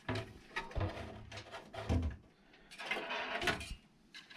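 A computer motherboard being slid into a metal PC case. It makes a series of clicks, knocks and scrapes as the board is handled against the case and its standoffs.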